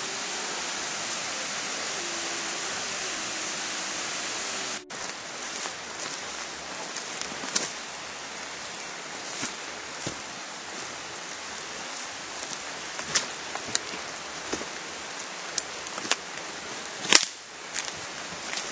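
A steady hiss that drops off suddenly about five seconds in. After it come irregular light crunches and snaps of footsteps on the woodland floor, the loudest near the end.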